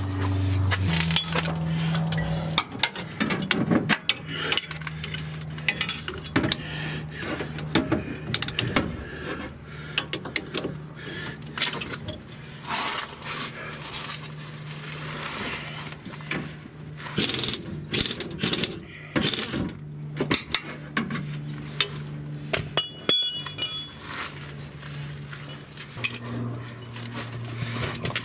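A wrench working on the rear leaf-spring shackle bolt, with an irregular run of metallic clicks and clinks. These go with loosening the bolt so the spring end can be rotated into place. A brief ringing metal clink comes about 23 seconds in.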